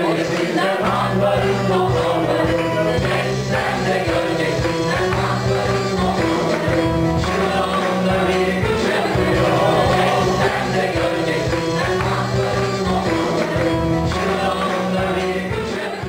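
Live band music: several voices singing a song together over acoustic guitars and a keyboard, starting to fade near the end.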